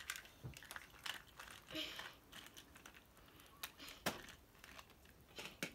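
Toy train carriages being handled and coupled on plastic track: a few faint, scattered clicks and taps of plastic on plastic.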